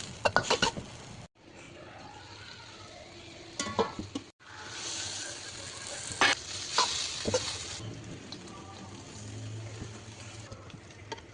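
Food sizzling as it is stir-fried in a pan, with a spatula clacking and scraping against the pan a few times. The sound cuts off abruptly twice in the first half and is loudest in the middle.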